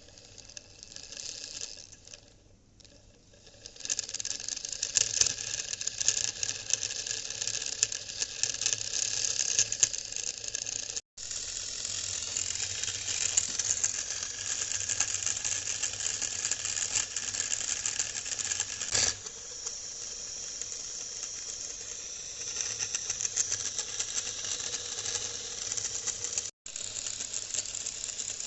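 Small homemade motor running with a fast, continuous rattling clatter of fine clicks. It gets much louder about four seconds in and drops out for an instant twice.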